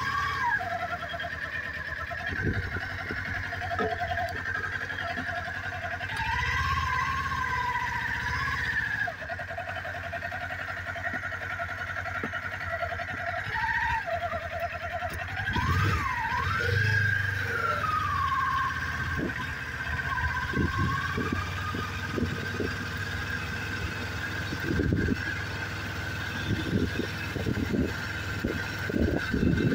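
Motorcycle running as it rides along, a steady low rumble, with a wavering higher tone rising and falling at a few points.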